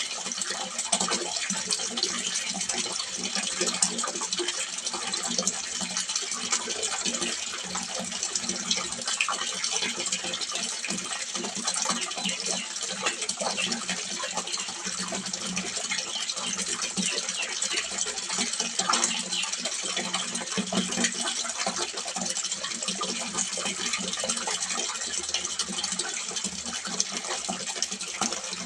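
Water splashing steadily into a small fish pond: an unbroken rush dense with fine splashes.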